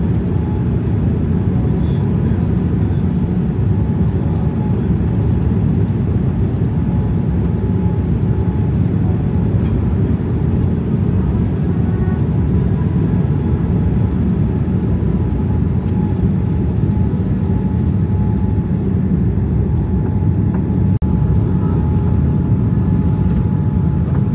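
Steady low rumble of a Boeing 787-10 airliner's engines and airflow, heard inside the cabin on the approach with flaps extended, with a faint steady whine over it. There is one momentary drop-out near the end.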